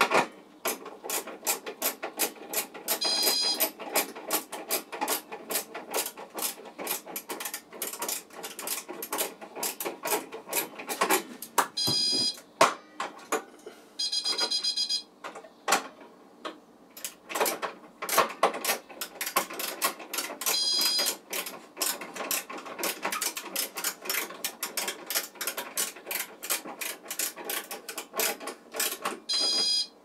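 Reset key being worked in the lock of a Notifier NBG-10 fire alarm pull station: continuous rapid metal clicking and rattling, broken by a few short high-pitched ringing tones.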